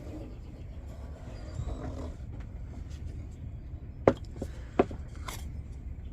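Marker and wooden template being handled on a board: faint scratching early on, then two sharp clicks about four and five seconds in, with lighter taps after, over a steady low rumble.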